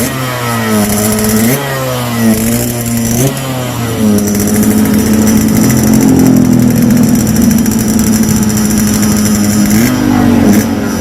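Yamaha RX-King's two-stroke single-cylinder engine revving through its hollowed-out (bobok) exhaust, tuned for a crisp 'garing' note. Two quick throttle blips in the first few seconds, then a steady raised rev held for about six seconds, which falls back unsteadily near the end.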